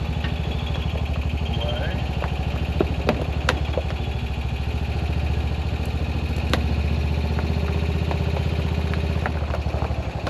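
Honda Pioneer side-by-side's engine idling steadily, with a few sharp clicks and knocks over it.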